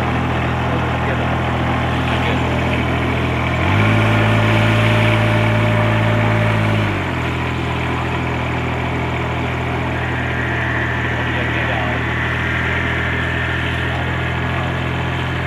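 Diesel engine of a ride-on rice transplanter idling steadily. About four seconds in it speeds up for roughly three seconds, then drops back to idle.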